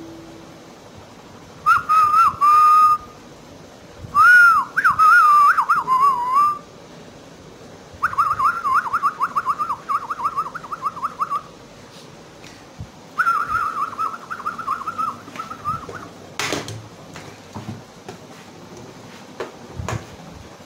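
A person whistling in four short phrases, the first two as gliding notes and the last two as quick warbling trills. A sharp knock comes about sixteen seconds in, and soft handling bumps follow near the end.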